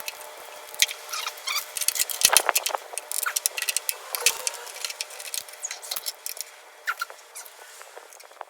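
Irregular clicks, taps and scratchy scraping of hand tools working on an engine's sheet-metal cooling tins, busiest a couple of seconds in and thinning out towards the end.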